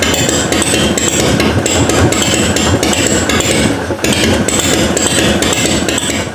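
1989 Harley-Davidson's air-cooled Evolution V-twin running at idle, warmed up, with a loud, fast, knocking beat.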